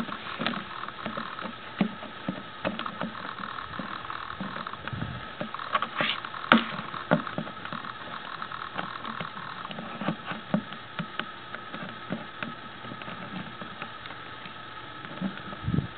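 Irregular clicking from an aging camera's mechanism over a steady faint whine, mixed with hollow knocks and scrapes as a dog mouths and shoves a large upturned plastic flower pot across grass. The loudest knocks come about six seconds in.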